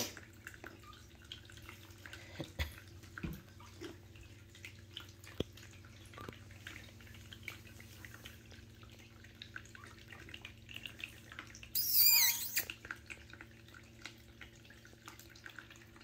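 A newborn kitten gives one short, high-pitched mew about twelve seconds in, over faint scratching and rustling of kittens crawling on a knitted blanket and a steady low hum.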